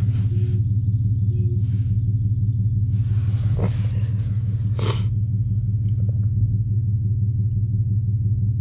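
A vehicle horn sounding as one continuous low drone, stuck on by an electrical fault that is taken for a Passlock problem. Two brief rushes of noise cut in about four and five seconds in.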